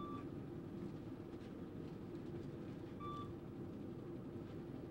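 City bus MetroCard farebox beeping as passengers pay: two short beeps about three seconds apart, over the steady drone of the bus's engine.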